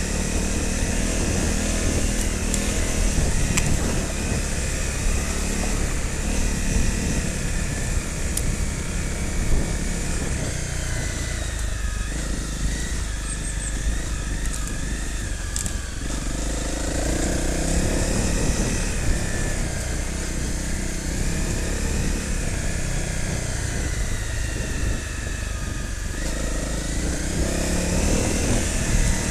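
Off-road motorcycle being ridden along a rough green lane, its engine note rising and falling with the throttle.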